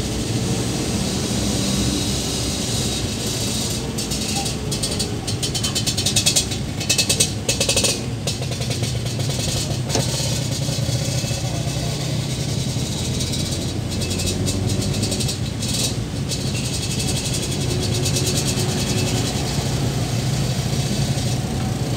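Suzuki Carry pickup's engine running as it drives, heard inside the cab as a steady low hum with road noise. Bursts of sharp rattling clicks come around six to eight seconds in and again near the middle.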